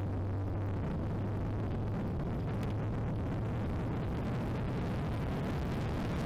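Ariel Atom 3 Supercharged's supercharged Honda four-cylinder engine running at speed, with a steady noisy rush over it.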